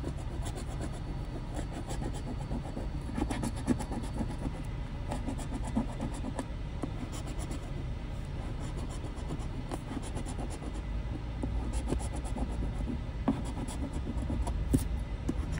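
A large metal coin scraping the coating off a scratch-off lottery ticket in many short, quick strokes, over a steady low rumble.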